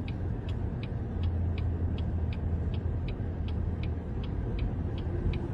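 A low, steady rumble with a light, regular ticking about three times a second over it.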